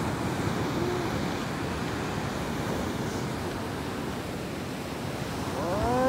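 Steady rushing noise of wind on the microphone. Near the end comes a short rising-then-falling voice, like an 'ooh'.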